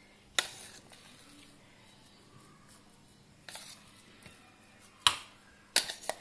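A metal spoon clinking against a steel mixer jar while thick ground-rice batter is scraped out: about five sharp clicks spread apart, with quiet between them. The loudest click comes about five seconds in.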